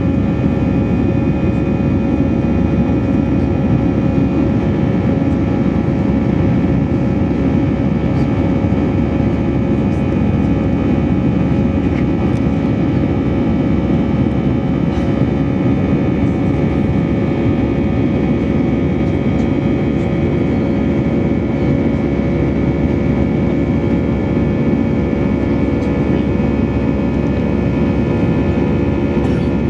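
Cabin noise of an Airbus A319 in flight, heard over the wing: a steady, loud rumble of engine and airflow from its CFM56-5B5 turbofans, with a steady whine of several tones above it.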